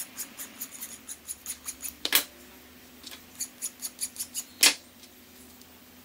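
Hand file rasping in quick short strokes, about five a second, across the end of a copper pipe whose cloth lagging is stiffened with CA glue, cleaning up the end. The strokes come in two runs, each ending in one louder, longer stroke, then they stop.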